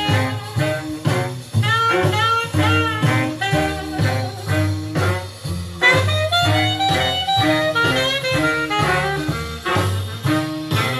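Jazz music with horns and a steady beat, played from a vinyl record on an Elac Miracord 50H II turntable.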